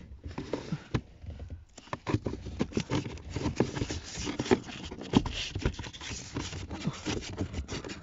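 New pleated paper pollen filter being flexed and pushed by hand into its plastic housing: scratchy rustling and scraping with many small clicks, sparser at first and busier from about two seconds in.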